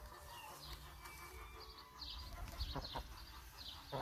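Brahma hens pecking corn kernels from a bare palm, a few quick soft taps about three seconds in, over a faint series of high chirps.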